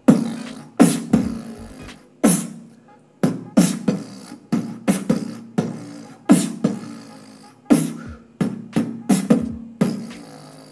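Beatboxed heavy lip bass: a tight, synthesizer-like buzzing bass made by vibrating the pressed lips, cut into a rhythmic pattern of sharp percussive hits with kick drums, each hit dying away quickly.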